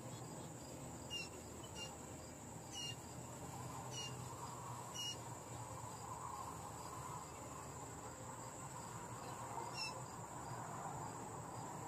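Steady, high insect drone, cricket-like, with about six short bird chirps that fall in pitch, scattered through it.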